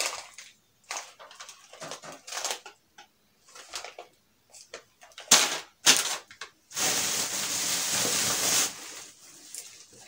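Plastic bag of popcorn kernels crinkling as it is handled, with two sharp crackles a little past halfway, then about two seconds of steady rustling as the bag is laid down on the grocery packets.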